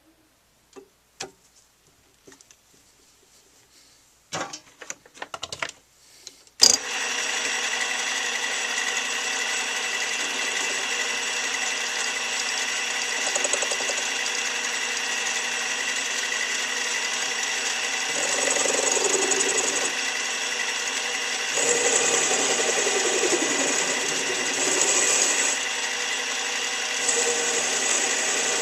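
A few handling clicks, then about seven seconds in a small benchtop machine tool's motor is switched on with a click and runs steadily with a high whine. Its sound swells several times, likely as the cut loads it while the end of the metal bar stock is faced off.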